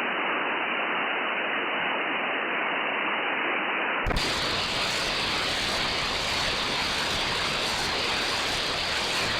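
Steady static hiss from an SDR receiver tuned to an empty 11-metre CB channel. About four seconds in a small click comes and the hiss jumps to a wider, fuller sound as the receiver is switched from lower sideband to AM.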